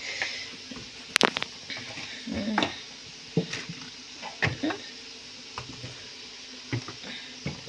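Scattered knocks and clatters of kitchen utensils, the sharpest about a second in, over a steady hiss of chips frying in oil.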